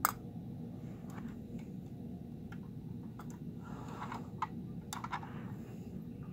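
Scattered light clicks and a short rustle of a hand handling a 1/34-scale First Gear die-cast toy garbage truck, the sharpest click right at the start, over a steady low hum.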